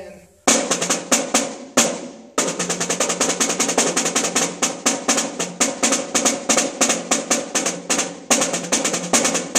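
Steel 14 by 4 inch piccolo snare drum with a coated Remo Ambassador batter head, played with sticks: a few single hits about half a second in, then a continuous run of fast strokes and rolls from about two and a half seconds in. Tuned nice and tight, with a good crack.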